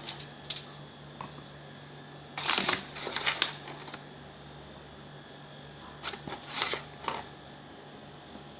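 All-purpose flour being scooped and poured into a measuring cup. Two spells of dry rustling and scraping come about two and a half seconds in and again about six seconds in, over a steady low hum.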